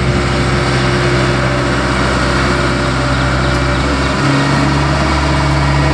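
Engine of a Hypac tandem steel-drum road roller running steadily as the roller drives slowly over asphalt, its note shifting a little about four seconds in.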